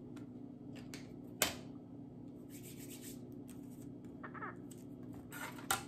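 Marker writing, in short runs of scratchy strokes, with a sharp click about a second and a half in.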